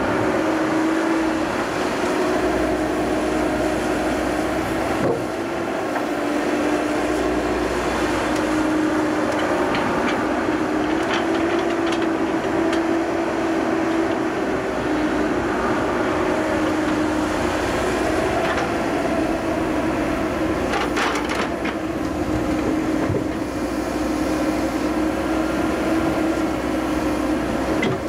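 Diesel engine and hydraulics of a Cat 314D excavator working a tie grapple, running steadily with a held drone as the boom swings, and a few sharp knocks about ten seconds in and again past twenty seconds.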